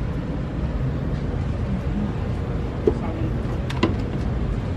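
Steady low background rumble, with a few light clicks and knocks near the end as a wok is handled on a shop shelf.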